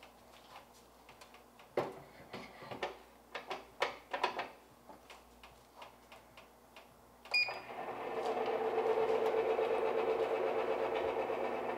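Clicks and light knocks as a spit loaded with a duck is fitted into the toothed wheels of a countertop rotisserie oven. About seven seconds in, the rotisserie's motor starts with a click and runs with a steady hum, turning the spit.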